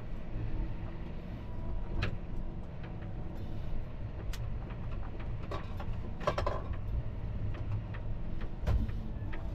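John Deere tractor's engine running as it drives, heard from inside the cab as a steady low rumble. A few short knocks and rattles sound over it, with a denser clatter about six seconds in.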